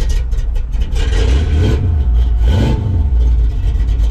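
Cammed 5.0-litre pushrod V8 of a 1987 Ford Mustang GT running cold just after its first start, with its throttle blipped twice: short revs about a second in and again past halfway.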